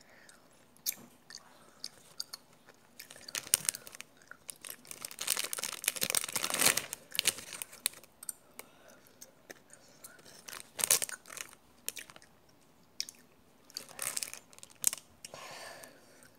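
Close-up crackling and rustling of plastic candy packets being handled, in irregular bursts that are busiest a few seconds in, mixed with close-up chewing of gummy candy.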